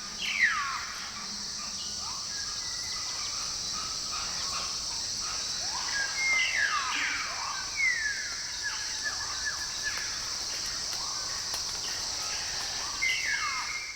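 Film jungle ambience sound effect: a steady high hiss bed with bird-like chirps that sweep downward in pitch. The loudest chirp comes about half a second in, several cluster between six and eight seconds, and another comes near the end.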